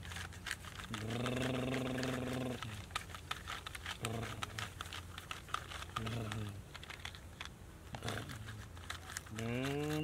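A person's voice holding one long, even hum about a second in, then making a few short wordless sounds, the last rising in pitch near the end, over frequent small clicks and crinkles.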